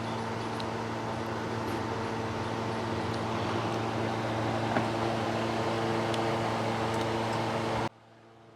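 Steady mechanical hum with a few faint ticks, cutting off suddenly near the end.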